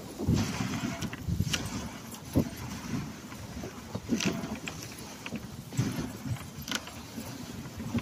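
Wooden dog sled running over snow: a steady scraping rumble from the runners, with irregular knocks and metallic rattles from the sled frame and its chain as it bumps along.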